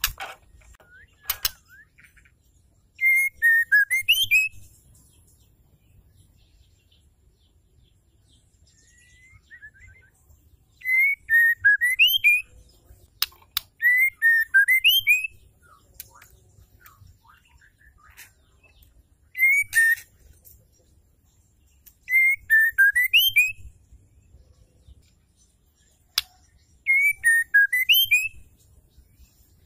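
Female white-rumped shama singing in short repeated phrases: about six phrases of a few clear whistled notes that dip and then rise, each with a thin high twitter above, a few seconds apart. This is the female's call that draws males into song. A few sharp clicks, the loudest right at the start.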